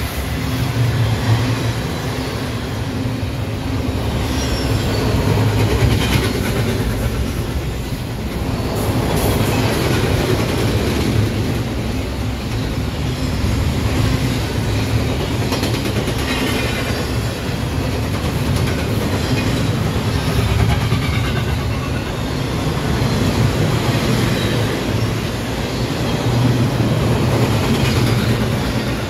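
Double-stack intermodal freight train rolling past: a steady, loud rumble and clatter of steel wheels on the rails as the container-laden well cars go by, swelling and easing slightly as successive cars pass.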